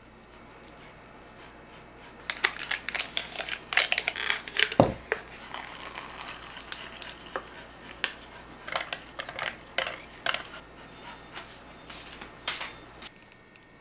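Kitchen handling sounds: a run of sharp clicks, scrapes and knocks of a spoon, pan and dishes, with one low thump about five seconds in. Liquid is poured from a pitcher into a glass partway through.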